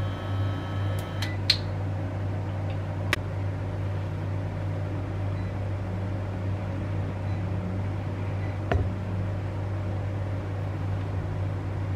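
Induction cooktop running under a stainless-steel wok of heating oil: a steady low electrical hum with fan noise, broken by three light clicks.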